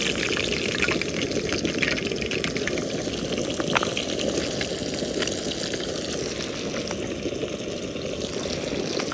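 Breaded fish frying in hot oil: a steady sizzle with scattered crackling pops.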